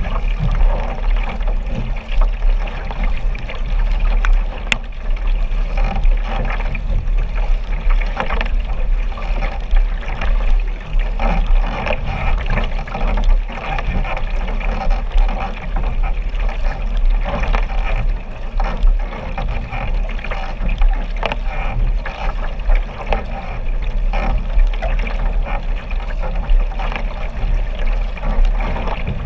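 Sprint kayak paddling heard from a camera low on the boat: the Braca paddle blade splashes into the water close by on stroke after stroke, over constant water rushing and lapping against the hull and a steady low rumble.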